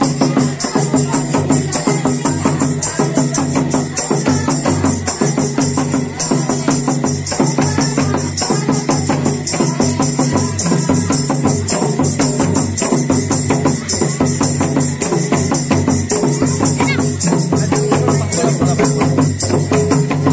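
Several double-headed barrel hand drums played by hand in a brisk, steady dance rhythm, with a bright jingling or shaking over it.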